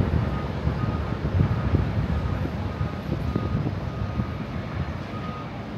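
Airport apron noise: distant jet aircraft engines making a steady low rumble, with a faint thin whine that comes and goes, and wind gusting on the microphone.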